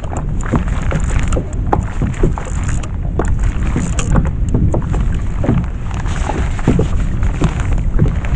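Water sloshing and splashing against a kayak hull in a steady run of small irregular splashes, over a low rumble of wind on the microphone.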